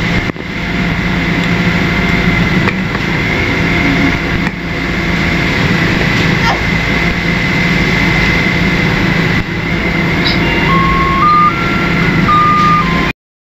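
Steady mechanical running noise with a constant high whine and a low hum. Near the end, a short electronic tone melody steps up and then back down in pitch.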